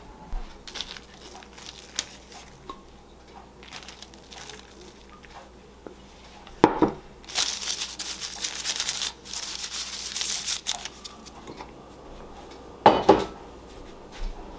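A hand rubbing and spreading flour across a sheet of parchment paper, a dry, scratchy rustle lasting about three seconds. It comes just after a sharp knock about halfway through, and a second sharp knock follows near the end, with light clicks of handling before.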